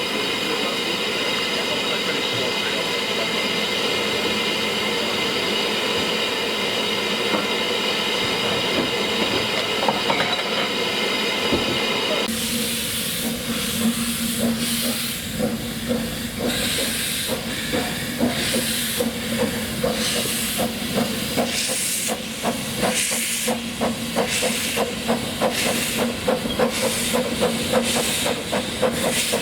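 Ffestiniog Railway narrow-gauge steam locomotive: a steady hiss of steam while it stands, then, after an abrupt change about twelve seconds in, a locomotive working with regular, evenly spaced exhaust beats.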